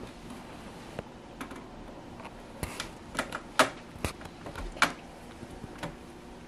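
Hands working thin wires into the terminal block of an HVAC zone control panel: a scatter of small sharp clicks and taps of wire and plastic, bunched in the middle, the loudest about three and a half seconds in.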